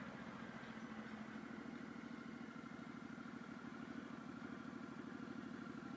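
Suzuki Boulevard M109R's big V-twin engine running at low, steady revs, an even pulsing throb.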